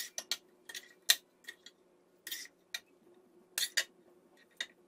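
Metal tongs clinking and scraping against a metal frying pan and a glass baking dish while braised peppers and potatoes are served out. It is an irregular series of about a dozen sharp clinks and clicks.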